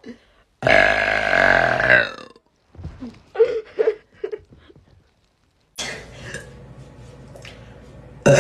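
A woman burping: one long, loud burp lasting about a second and a half, followed by a few short bursts of sound. Another loud burp starts just at the end.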